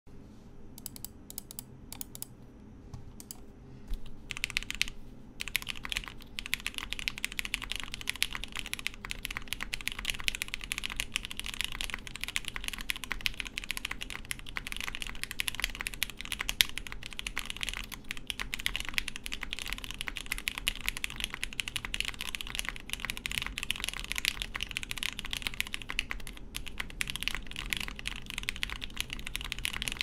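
Typing on a Polaris 60% mechanical keyboard with lightly lubed Hippo linear switches and GMK Olivia keycaps: a few separate keystrokes in the first four seconds, then steady fast typing. A faint fan hum runs underneath.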